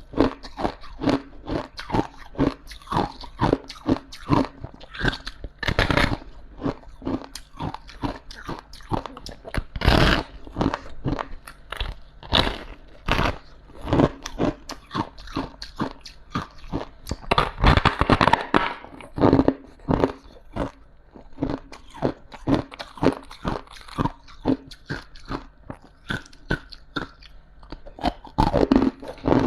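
Frost being bitten and chewed in the mouth: a long run of crisp crunches, several a second, with a few louder bites among them.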